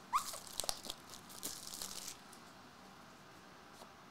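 Trading card pack wrapper being torn open and crinkled by hand: a short squeak of tearing, then a quick run of crackles lasting about two seconds before it goes quiet.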